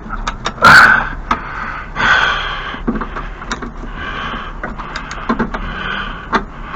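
Hand tools and metal parts of a snow thrower being worked: a string of sharp clicks and knocks with several short stretches of scraping.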